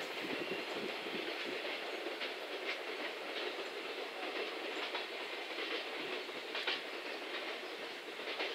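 JR Freight container train of 16 wagons rolling away, a steady rumble with scattered clicks of wheels passing over rail joints.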